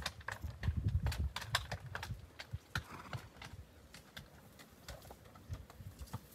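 Horse's hooves striking and scrambling over loose rocks while climbing a steep slope: an uneven run of sharp clicks and knocks with duller thuds beneath.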